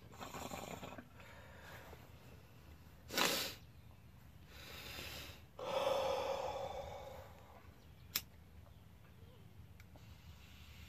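A bong hit: breath drawn through the bong, a short sharp rush of air about three seconds in, then a loud, long exhale of smoke starting a little before six seconds. A single sharp click comes near eight seconds.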